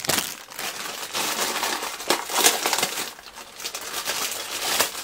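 Clear plastic bag crinkling and rustling in a series of sharp crackles as hands pull it open to take out a microphone shock mount.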